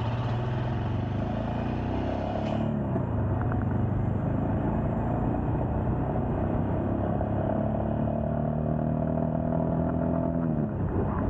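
Royal Enfield Scram 411's air-cooled single-cylinder engine accelerating. Its pitch rises, drops with an upshift about two and a half seconds in, then climbs slowly for most of the time before dropping with another upshift near the end.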